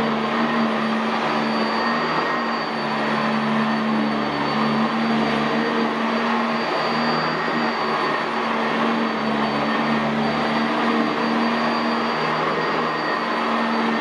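Sanitaire SC679J commercial upright vacuum running steadily while it is pushed over dry carpet, its 5-amp motor giving a continuous hum and a high whine. The wooden brush roll is lifting the carpet pile in post-vacuuming.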